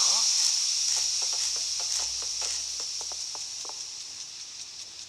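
Food sizzling in a frying pan, a steady hiss with small crackles and pops, fading gradually.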